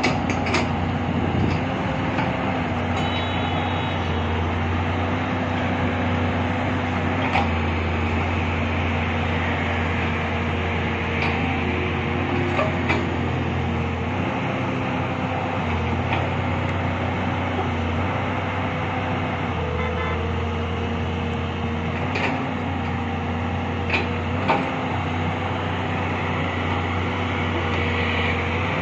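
SANY SY220 long-reach excavator's diesel engine running steadily under hydraulic load as the boom and arm work, its pitch shifting slightly now and then. A few brief sharp clanks sound over it.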